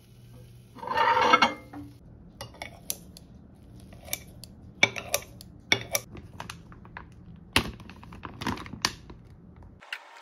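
A ceramic plate scraping loudly over the microwave's glass turntable as it is pulled out, about a second in, then kitchen scissors snipping cooked chicken on the plate, their blades clicking and clinking against the china in a string of sharp, irregular clicks.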